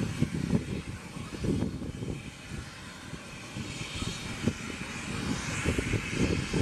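Jet aircraft engines running at a distance: a steady hiss that swells about four to five seconds in, over an irregular low rumble.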